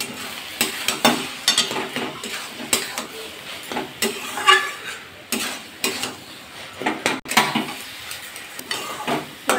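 Metal spatula scraping and stirring ash gourd with moong dal in a metal kadai, repeated irregular scrapes against the pan over the sizzle of the food cooking on the gas.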